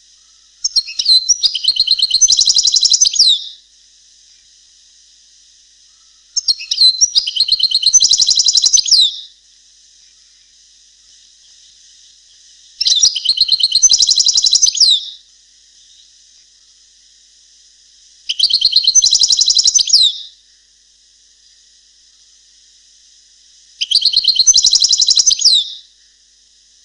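European goldfinch song in the Palestinian style, sung as five twittering, trilling phrases of two to three seconds each, about every six seconds. A faint steady high hiss runs underneath.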